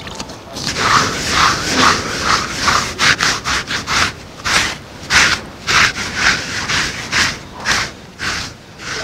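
A grooming brush swept over a horse's coat in quick, repeated strokes, about two to three scrapes a second, starting about half a second in.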